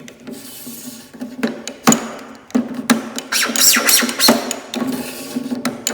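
A plexiglass sheet being scraped and scored with a plexi cutter, in a series of scratchy strokes with sharp cracks among them, the busiest in the middle.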